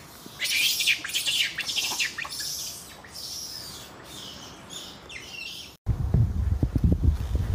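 Young macaques giving repeated high-pitched squeaky calls. After a sudden cut near the end, low rumbling wind noise on the microphone.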